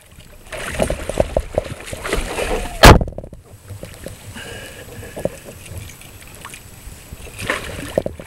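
Hooked salmon thrashing at the surface beside a kayak as it is netted, water splashing and slapping against the hull while the landing net goes in. A single loud, sharp knock about three seconds in.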